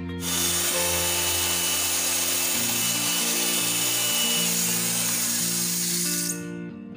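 Electric hand mixer running, its beaters whipping a cream and condensed-milk mixture in a stainless steel bowl; it starts just after the beginning and cuts off about six seconds in. Background music plays underneath.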